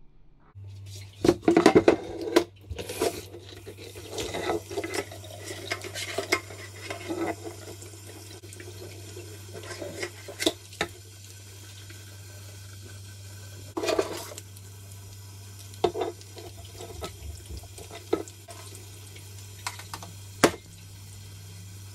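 Kitchen tap running into a stainless-steel sink while a lobster is rinsed under it, with irregular knocks and clatters of the shell and a wooden chopping board against the sink.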